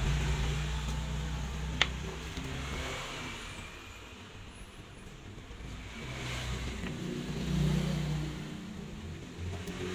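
Low rumble of a motor vehicle engine that fades and then swells again, with one sharp tick about two seconds in from a small metal tool on the watch movement.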